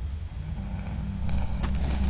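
A man snoring: a low snore that swells about half a second in, with a few crackles near the end.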